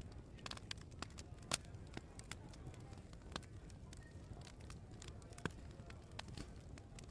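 Wood fire crackling in an open fireplace: irregular sharp pops and snaps, two louder ones about a second and a half in and near five and a half seconds, over a low steady rumble.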